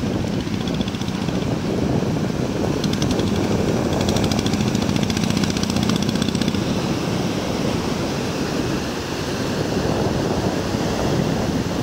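Surf breaking and washing over the shallows, with wind buffeting the microphone. A faint steady engine hum runs underneath from about two seconds in to past six seconds.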